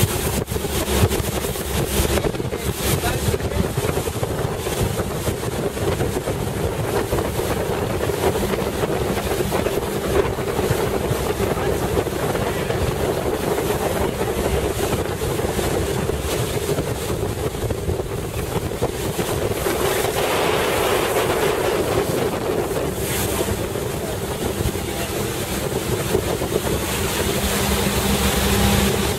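A small boat's motor running steadily as the boat moves through the water, with wind buffeting the microphone.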